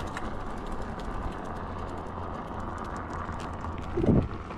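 Wind rushing over the microphone and tyre noise from a bicycle riding along. About four seconds in there is one short voiced sound.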